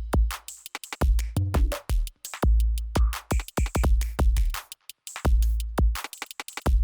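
Electronic music with a heavy drum-machine beat: deep kick-drum hits and sharp percussive clicks in a stop-start pattern, with synth sounds.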